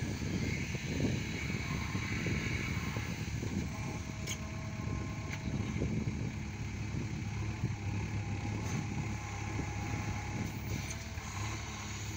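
JCB 3DX backhoe loader's diesel engine running steadily under load while the backhoe arm digs.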